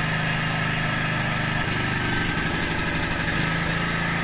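Briggs & Stratton engine of a Cub Cadet XT1 Enduro riding mower running steadily just after a cold start, on choke with the throttle at full.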